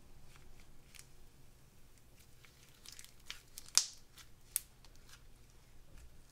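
Slime being kneaded and stretched by hand: irregular small crackles and clicks, with two louder sharp pops near the middle.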